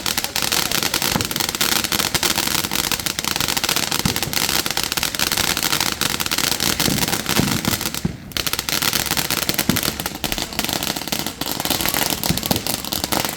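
Fireworks crackling in a fast, dense stream of sharp pops, many a second, with a brief pause about eight seconds in, then stopping abruptly at the end.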